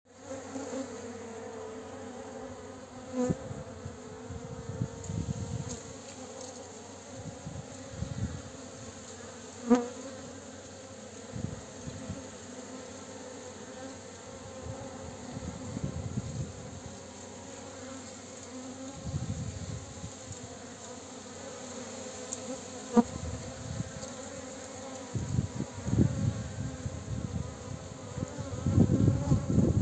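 Bee buzzing in a steady drone, with a few sharp clicks and patches of low rumbling noise that grow louder near the end.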